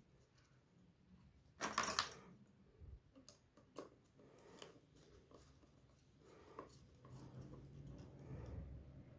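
Small wooden parts handled and fitted by hand: a short scrape about two seconds in, then scattered light clicks and knocks, and a soft grinding near the end as a screw is turned into the wood with a hand screwdriver.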